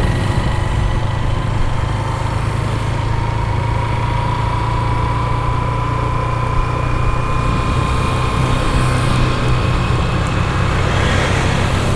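Honda CB 150F single-cylinder motorcycle engine running steadily at cruising speed, with road and wind noise.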